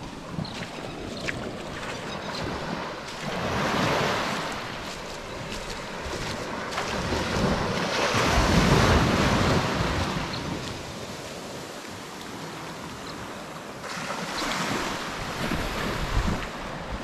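Small harbour waves breaking and washing up the beach in three surges, with wind buffeting the microphone.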